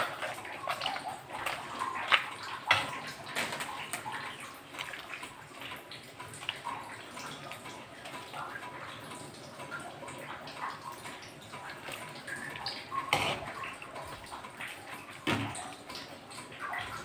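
Water splashing and sloshing in an aluminium pot as blanched cabbage leaves are pushed about and cut with a knife, with a few sharp knocks of the blade against the pot.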